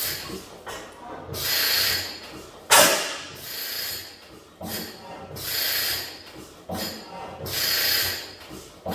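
Fairbanks Morse type N single-cylinder stationary engine running slowly on propane, with a hissing puff every one to two seconds at uneven spacing. There is one sharp crack just under three seconds in.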